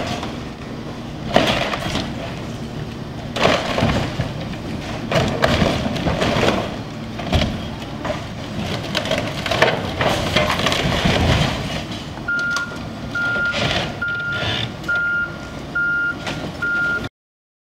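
Case backhoe loader running as it rams a house front, with repeated crashing and crunching of metal siding and wood framing. About twelve seconds in, its reversing alarm starts beeping steadily, about six beeps, before the sound cuts off suddenly.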